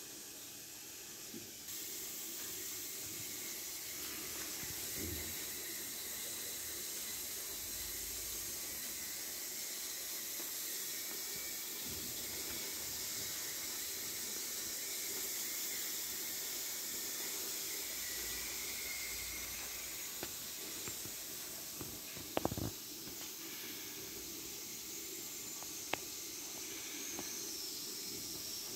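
Steady hiss of steam from a Goley Plus stainless-steel vertical autoclave while it runs, growing slightly louder about two seconds in. A few short sharp clicks come near the end.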